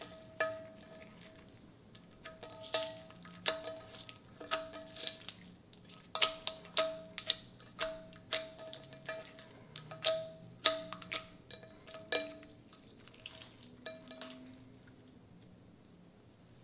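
Ultra clear slime mixed with balloon cuttings being pressed and stretched by hand, giving sharp, wet pops and clicks, one or two a second, that stop shortly before the end.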